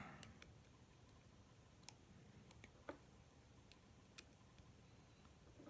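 Near silence broken by a few faint, sharp clicks of a small precision screwdriver and tiny screws being handled on an iPhone 5's bottom edge.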